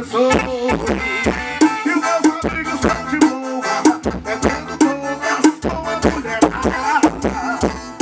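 Music with a fast, steady drum beat and a melodic line over it.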